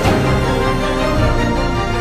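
Background music: sustained chords over a steady pulsing bass beat, with a new chord coming in at the start.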